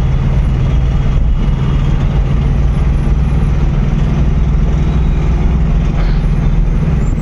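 Mahindra Veero pickup's engine running steadily at cruising speed, heard from inside the cab along with road noise.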